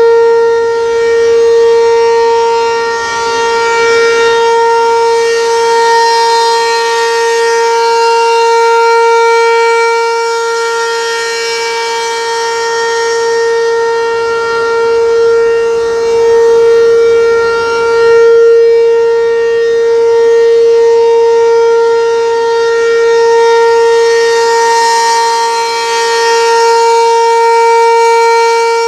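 ACA P-15 rotating outdoor warning siren sounding its steady Alert tone: one held pitch with overtones, swelling and fading in loudness as the rotating head sweeps past.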